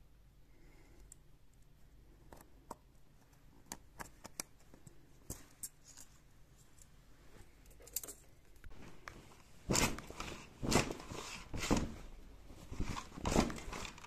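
A heavy curtain being taken down: scattered small clicks at first, then from about ten seconds in, louder bursts of the fabric rustling and its plastic hooks clicking along the ceiling track.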